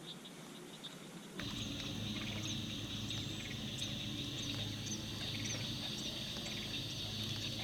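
Outdoor pond-side ambience: insects calling in a steady chorus with short bird chirps over it and a low steady hum underneath. The chorus comes in abruptly about a second and a half in.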